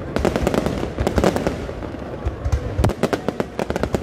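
Fireworks display going off in a rapid, irregular barrage of bangs and crackling reports, many overlapping each second.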